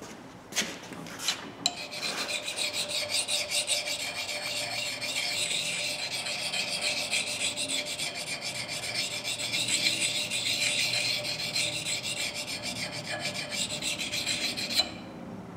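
Steel bit of a forged hatchet being sharpened by hand, a flat hand-held sharpener rubbed along the edge in rapid, even strokes. A few light clicks come first; the rubbing starts about two seconds in and stops just before the end.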